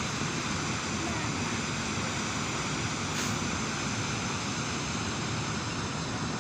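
Steady rushing of water falling over a waterfall.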